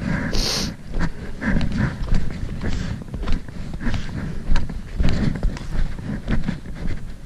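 A hiker's footsteps crunching through snow at a steady walking pace, under a low rumble, with a short high hiss about half a second in.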